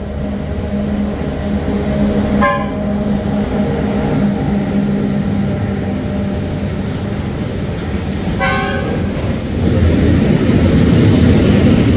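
A train at the station sounds two short horn toots about six seconds apart over a steady engine hum. Near the end the rumble of the train on the rails grows louder.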